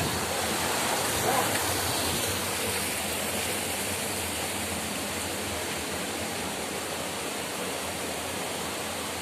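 Small waterfall and stream rushing steadily over boulders: an even, continuous rush of water.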